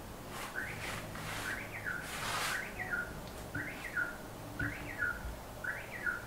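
A bird calling: a short chirp that rises then falls in pitch, repeated about once a second.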